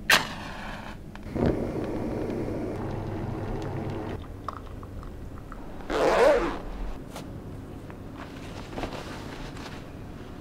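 Zipper of a puffy down jacket pulled up about six seconds in, a short loud zip with a rising pitch. Before it come a sharp click at the very start and a few seconds of handling and rustling noise.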